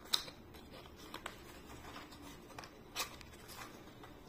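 Handling sounds of a boxed powder blush being unpacked: a sharp click just after the start, two small taps about a second in and another click about three seconds in, with faint scraping and rustling of the packaging between.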